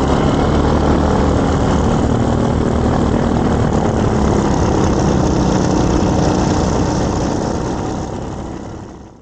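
ScoutZero paramotor's propeller running steadily in flight, a constant hum mixed with wind rush, fading out over the last second or so.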